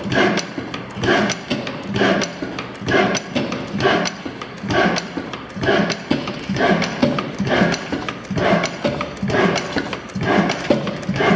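Ruston stationary engine running, its valve gear and fuel pump clattering in a steady rhythm, with heavier strokes a little under a second apart and lighter clicks between.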